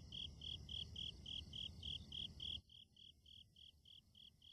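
Night-time crickets chirping, an even train of short high chirps about four times a second. A low background rumble under them stops abruptly a little past halfway.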